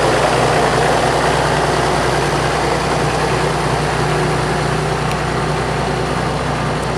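1958 Oliver 880 tractor's six-cylinder diesel engine running steadily as the tractor drives off, growing slightly fainter as it pulls away.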